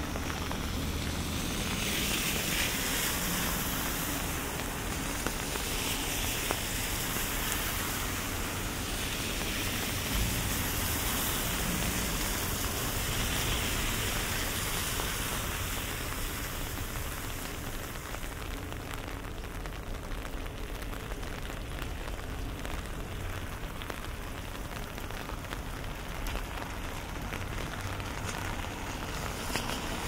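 Steady rain falling, with many close raindrop ticks over an even hiss. The hiss swells a little every few seconds in the first half and eases slightly around the middle.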